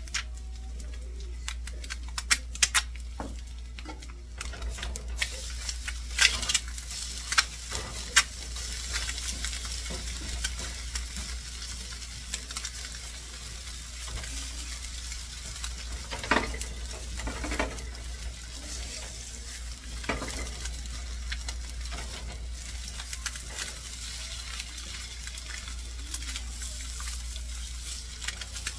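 Eggs frying in oil on a nonstick griddle, a steady sizzle, with scattered taps and scrapes of a silicone spatula against the pan, densest in the first several seconds.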